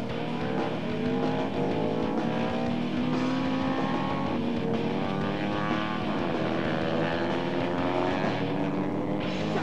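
Vintage road-racing motorcycle engines running hard at high revs, the pitch climbing as they accelerate and falling briefly about six seconds in before climbing again.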